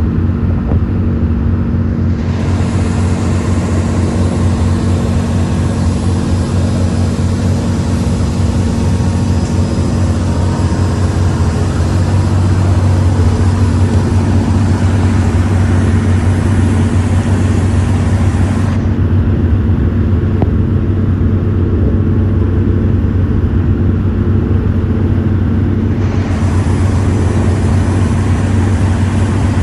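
Vehicle engine running steadily: a loud, even low drone under constant travel noise.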